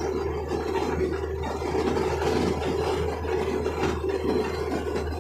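Truck engine running with a steady low hum, heard from inside the cab, under a continuous loose rattling and scraping as the truck jolts over a rough dirt road. The rattling stops abruptly near the end.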